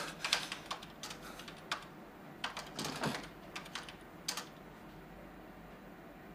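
Typing on a computer keyboard: irregular keystroke clicks, about two a second, stopping about four seconds in.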